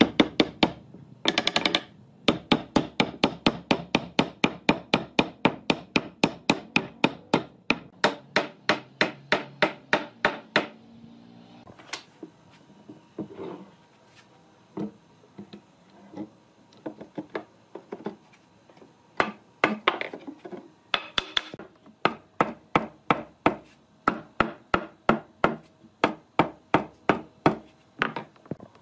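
Hammer blows on wood in fast runs of about four strikes a second, with a slower, sparser stretch in the middle.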